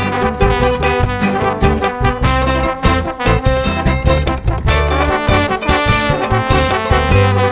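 Upbeat background music with brass horns over a steady bass beat.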